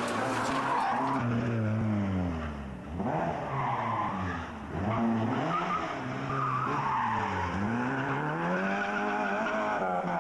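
Rally car engine revving hard through hairpins: its pitch drops sharply and climbs back up again, about three times.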